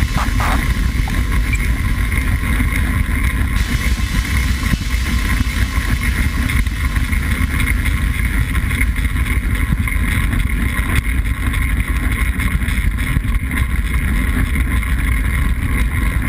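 Steady wind rush buffeting the microphone of a camera on a track bike at racing speed, mixed with the rolling hum of tyres on the velodrome's wooden boards.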